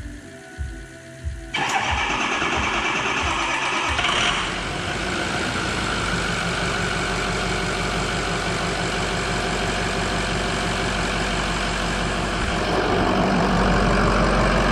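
Ford 6.0 Powerstroke V8 turbodiesel starting for the first time after a turbo replacement. It catches about a second and a half in, flares briefly, then settles into a steady idle. It gets louder near the end as the engine bay is heard up close.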